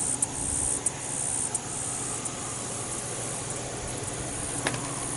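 Steady outdoor background hiss with a high, buzzing insect-like band that is strongest in the first two seconds, and a few light clicks.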